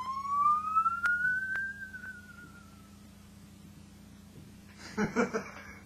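Musical saw being played: one wavering note slides up and then slowly down over about three seconds, with a couple of clicks. A short, louder burst comes near the end.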